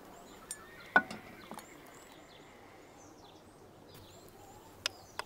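Quiet outdoor ambience with faint small birds chirping. A single sharp knock about a second in, and a couple of lighter clicks near the end.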